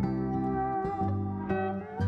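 Background music on guitar: plucked notes held and ringing, with some pitches sliding.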